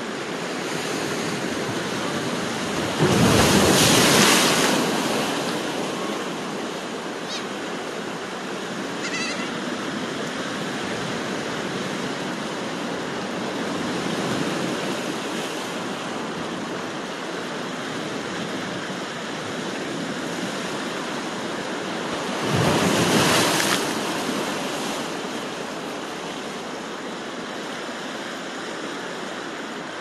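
Sea waves washing against a rocky shore, a steady surf with two louder breaking waves, one about three seconds in and another about twenty-two seconds in. A couple of faint gull calls come through early on, around eight and nine seconds.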